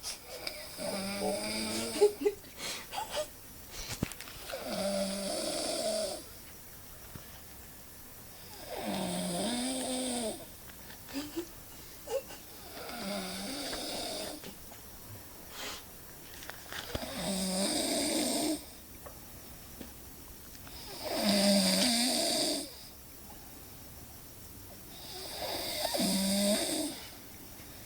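A man snoring in his sleep: seven long snores, one about every four seconds, with quiet breathing between them.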